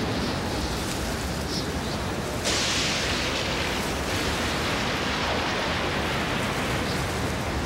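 Thunderstorm sound effect: a steady hiss of wind and rain that swells louder for about a second and a half, some two and a half seconds in.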